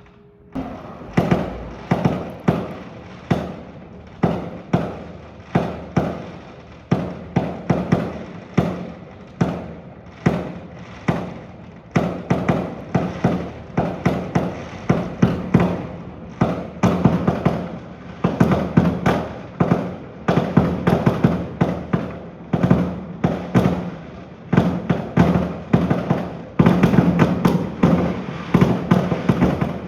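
Aerial fireworks shells bursting one after another, a sharp bang about every second, each fading out in a short tail. The bursts start about half a second in and come faster and more crowded in the second half.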